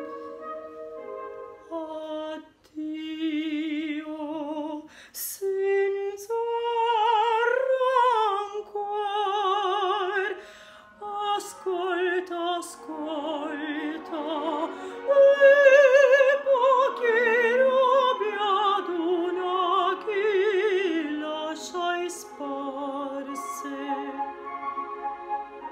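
A woman singing opera in a trained classical voice. She holds sustained notes with a wide vibrato, and her line rises and falls, loudest around the middle.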